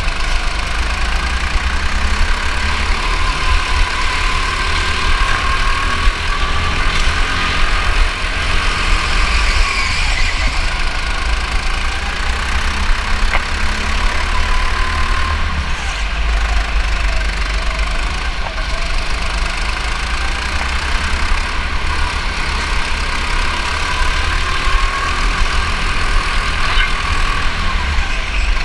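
Go-kart engine running under throttle, heard from on board, its pitch rising and falling as the kart speeds up and slows through the corners. A heavy low rumble runs underneath.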